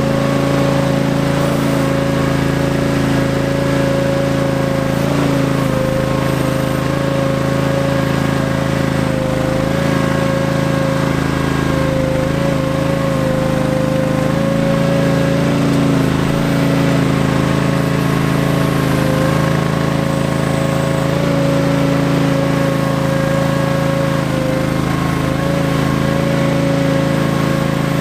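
Ingersoll 7020L garden tractor running steadily while it drives, the engine note overlaid by a strong, steady whine.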